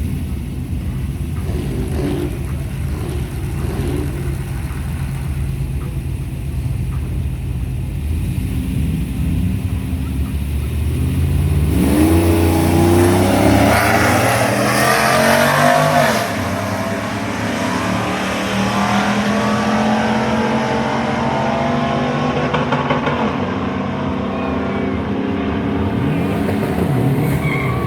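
Drag-race run: vehicle engines idle at the start line, then launch about twelve seconds in. The engines rev up through rising gear pulls, loudest for the first few seconds after the launch, and the engine sound carries on with further rises and falls in pitch as the run goes on.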